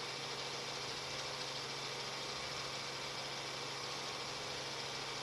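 Steady helicopter cabin noise heard through the crew's intercom: an even hiss with a constant low hum, no fireworks bangs audible.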